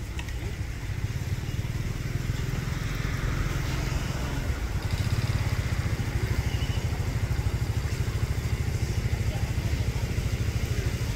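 A low, steady engine rumble that grows a little louder over the first few seconds.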